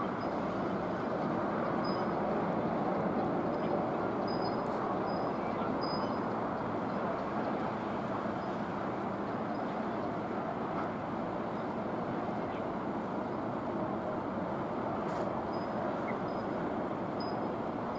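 Steady rushing background noise, with a few faint short high chirps.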